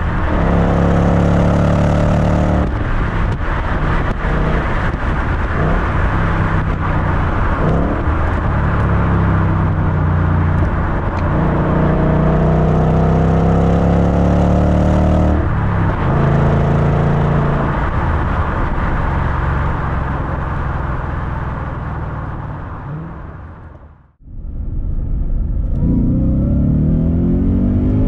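Supercharged 5.0-litre V8 exhaust heard right at the tailpipes while driving, revving up and falling back several times as the throttle comes on and off. About 24 seconds in the sound fades out, then the engine is heard pulling hard with rising revs as the car accelerates in second gear.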